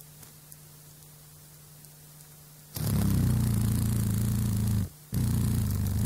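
Dragonfly wings buzzing in flight close to the microphone: a loud, low fluttering buzz starts abruptly about halfway in, breaks off for a moment, then comes back. Before it there is only a faint hiss with a low hum.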